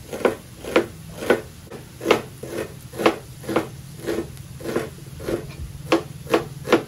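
Kitchen knife slicing a red onion thinly on a cutting board: regular chops about two a second. A steady low hum runs underneath.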